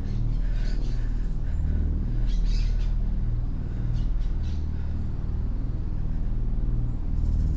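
A low, steady rumble carries most of the sound. Birds chirp faintly above it, a short cluster about two seconds in and a few more chirps around four seconds.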